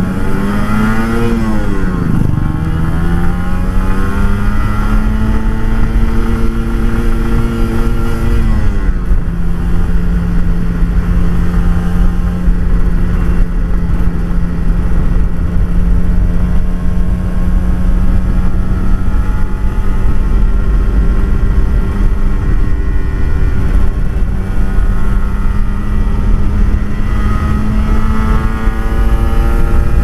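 Kawasaki Ninja RR 150's two-stroke single-cylinder engine running through an Eighty Racing aftermarket exhaust, mostly at steady revs. Its pitch dips and comes back up about two seconds in, drops a little about nine seconds in, and climbs slowly near the end.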